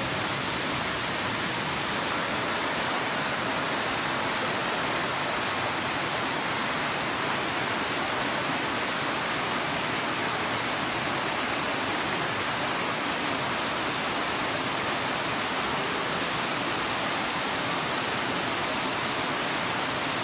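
Steady rush of falling water, an even, unbroken noise that holds one level throughout.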